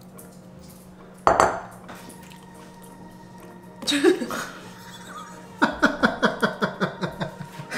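A single clink of a glass bowl about a second in, then near the end a man laughing in a run of quick, rapid bursts.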